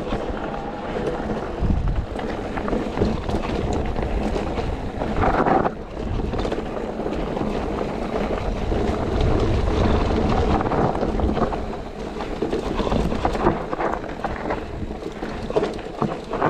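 Mountain bike riding a dirt trail, heard through a GoPro's microphone: wind buffeting the mic over the rolling noise of the tyres, with scattered knocks from the rough ground.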